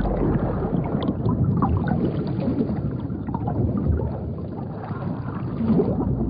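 Water splashing and sloshing around a swimming polar bear, with many small irregular clicks and knocks among loose sea ice. It dips a little past the middle and swells again near the end.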